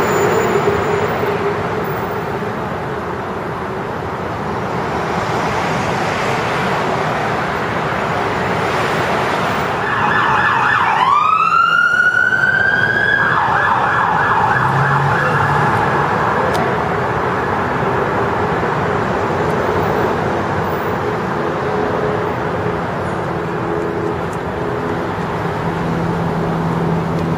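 Steady road traffic noise from the bridge's roadway, with an emergency vehicle's siren that rises in pitch about ten seconds in and sounds for a few seconds.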